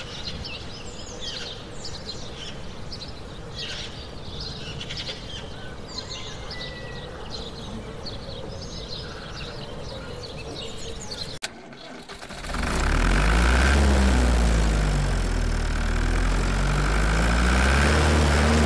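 Birds chirping over outdoor ambience for the first eleven seconds or so. Then, after a sudden cut, a loud low engine-like drone starts and runs on, its pitch slowly dipping and rising.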